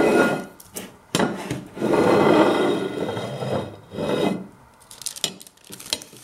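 A metal baking tray scraped and lifted across a kitchen worktop, with greaseproof paper rustling as it is tilted over a plate, followed by a few light knocks near the end.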